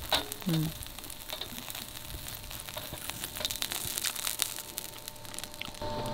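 Beef sizzling in hot fat, with a steady crackle of small spitting pops.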